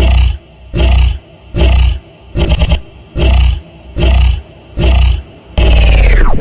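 Deep animal roars in a loud, evenly spaced series, about one every 0.8 seconds, with a quick stuttering roar in the middle. Near the end comes a longer cry that falls steeply in pitch.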